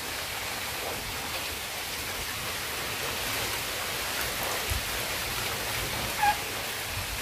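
Steady rain falling in a downpour, an even hiss, with one short sharp sound about six seconds in.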